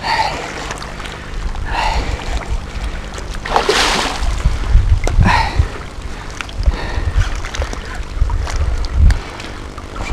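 Hooked pike splashing at the surface, a few short splashes with the strongest about four seconds in, over a steady low rumble of wind on the microphone.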